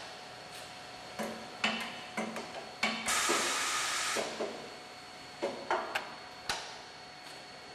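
Automatic dart assembly machine cycling through a test run, its pneumatic actuators clacking. A few sharp clacks are followed by a hiss of released air lasting just over a second, about three seconds in, and then a few more clacks as the mechanisms start picking up the needle and body pieces.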